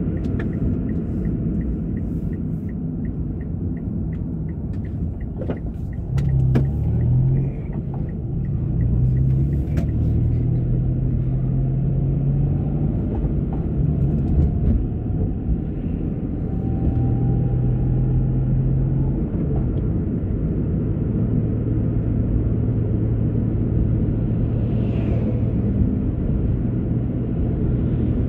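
Car driving along a road, heard from inside the cabin: a steady low rumble of engine and tyre noise, with the engine tone shifting as the car changes speed. A light, regular ticking runs for the first few seconds.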